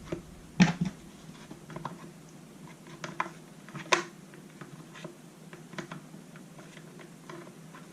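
Scattered light clicks and taps of small parts being handled as the oil pickup line is fed into a Homelite XL chainsaw's oil tank, with two sharper clicks, one just after the start and one about four seconds in.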